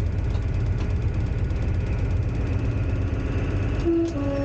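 Diesel engine of an HST power car running steadily under the cab floor on the move, a constant low drone. About four seconds in, the two-tone horn sounds briefly, a high note then a lower one, as the train passes a whistle board.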